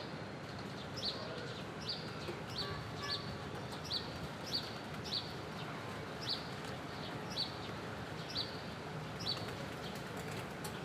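Steady rain hiss, with a bird chirping over it: short, high, falling chirps about twice a second.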